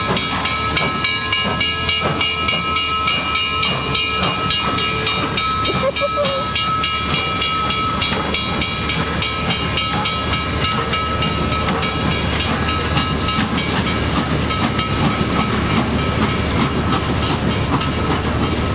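Steam locomotive No. 734, a 2-8-0, running past with a steady hiss of steam and the clatter of the train on the rails.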